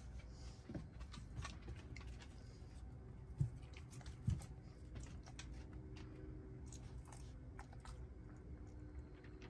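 Faint, scattered clicking of a heeler's claws on a bare floor as she walks up, with two soft thumps about a second apart near the middle.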